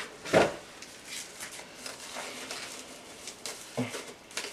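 Light handling noises: a short knock about half a second in, then faint rustles and small clicks.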